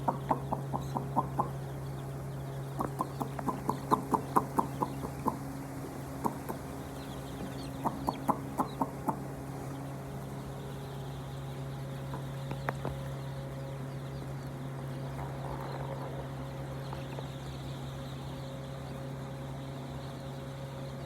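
Domestic hens clucking in quick runs of repeated clucks, several runs in the first half, then falling mostly quiet. A steady low hum runs underneath.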